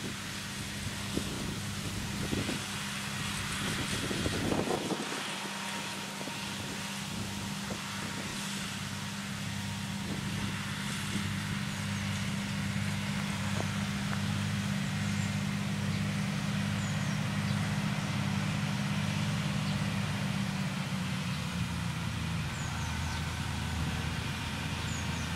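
Deutz-Fahr tractor running steadily under load while mowing grass with front and rear mowers; its even engine drone grows gradually louder as it comes closer, and its pitch drops about three-quarters of the way through.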